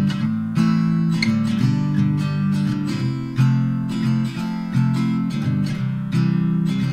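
Background music: a strummed acoustic guitar playing a steady rhythm.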